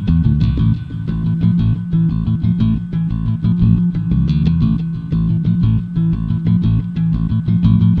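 Background music: a plucked guitar and bass track with a steady beat.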